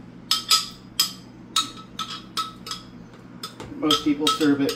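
A spoon knocking and scraping against a blender jar as pureed cranberry salsa is worked out into a container: a series of sharp knocks, about three a second, each with a brief ring. A man's voice starts near the end.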